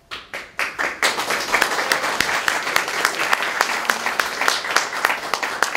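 Small audience applauding: a few scattered claps at first, filling out into steady clapping from about a second in.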